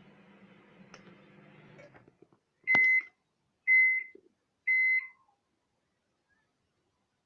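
Microwave oven finishing its cycle: the faint running hum stops, then three short, high electronic beeps about a second apart signal that it is done.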